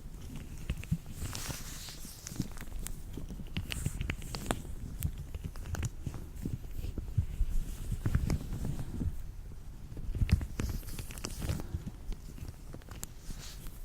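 Hands in latex gloves rubbing, stretching and crinkling, with many small irregular clicks and snaps from the latex.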